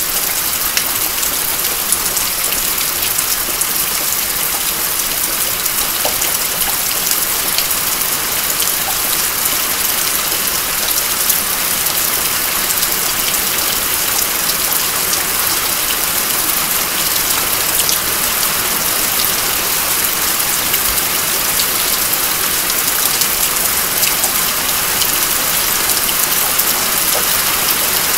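Steady rain falling, an even hiss with many separate drops striking close by.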